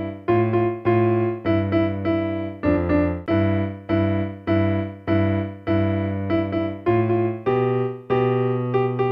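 Electronic keyboard in a piano voice, played with both hands together in slow practice. Its notes come in quick pairs and longer held ones, each fading after it is struck.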